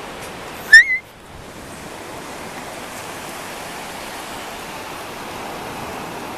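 Steady rushing noise of the seashore, with one brief, loud, rising high squeak a little under a second in.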